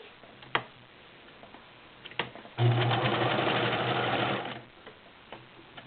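Morse Apollo 6500 all-metal sewing machine stitching through five layers of woven upholstery fabric in high gear, running steadily for about two seconds before stopping. A couple of sharp clicks come before it starts.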